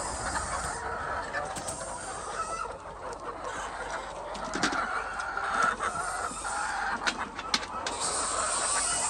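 A flock of laying hens clucking together in a poultry house, a continuous overlapping chatter, with scattered sharp clicks.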